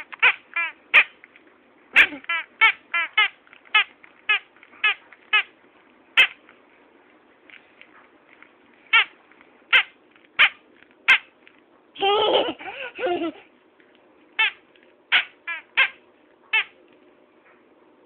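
Rubber squeaky toy squeaking again and again in short, sharp squeaks at an uneven pace, with a longer, louder run of rapid squeaks about twelve seconds in.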